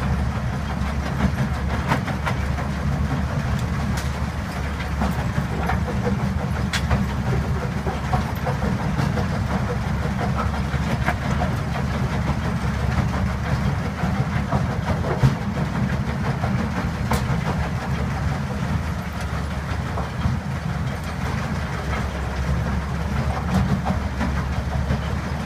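RESTA mobile crusher running while it crushes concrete rubble: a steady, low-pitched mechanical rumble with scattered sharp clatters of broken concrete and stone falling off its discharge conveyor.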